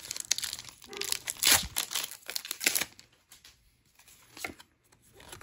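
Foil wrapper of a Pokémon trading-card booster pack crinkling and tearing as it is ripped open, for about three seconds. Then quieter, with a few faint rustles as the cards are pulled out.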